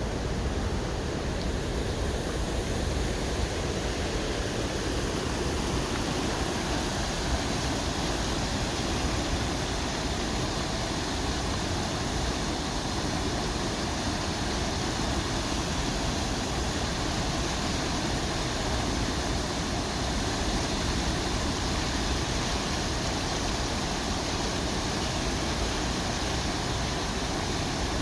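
River water rushing steadily: an even, unbroken noise.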